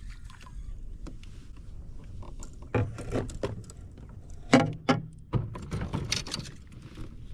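Several sharp knocks and bumps of gear against a plastic fishing kayak as the angler handles his rod, with the loudest knock about halfway through, over a low rumble of wind on the microphone.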